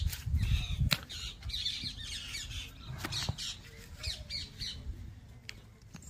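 Birds calling, many short high calls overlapping, with a few sharp clicks and a low rumble in the first second.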